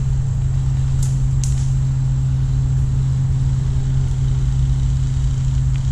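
A steady low hum with a fainter higher overtone, and two sharp clicks a second or so in.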